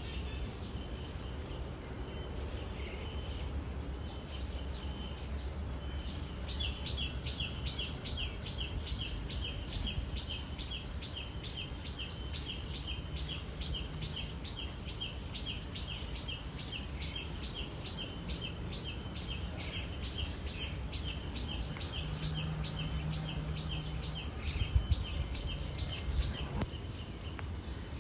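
Cicadas droning in a steady, high-pitched whine. From about six seconds in until near the end, a rapid series of short repeated chirps, about three a second, runs over it.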